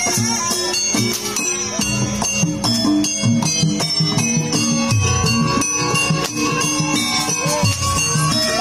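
Jaranan campursari troupe music played live: steady drum strokes and jingling bells under a pitched melody line.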